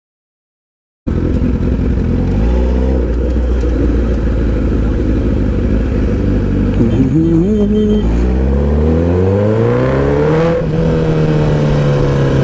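About a second in, the Honda CBR1000RR Fireblade's inline-four engine cuts in, running under the rider. Past the middle its pitch climbs for a few seconds as the bike accelerates, then falls away near the end.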